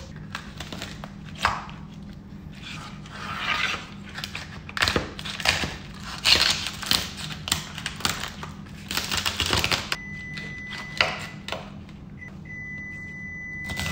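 A chef's knife cracking and crunching through a live lobster's shell on a cutting board, with repeated knocks and clicks of the blade and shell against the board. A steady low hum runs underneath, and a faint steady high tone comes in over the last few seconds.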